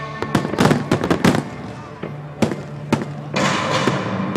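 Fireworks bursting: a quick cluster of sharp bangs in the first second and a half, two more single bangs, then a hissing crackle for about a second near the end.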